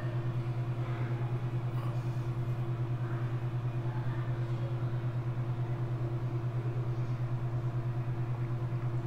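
Steady low mechanical hum with a fast, even pulsing.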